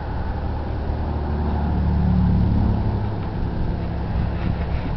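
A road vehicle passing on the highway: its low rumble swells to a peak about two seconds in, then fades.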